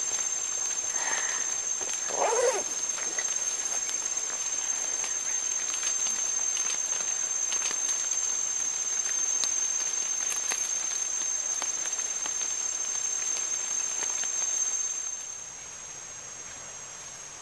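Rainforest ambience: a steady high-pitched insect drone over an even hiss, with a brief soft call about two seconds in. The hiss drops quieter about fifteen seconds in.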